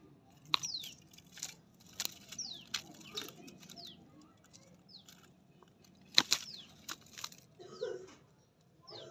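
Sharp clicks and rustles right at the microphone, with short, high chirps that fall in pitch, about one or two a second.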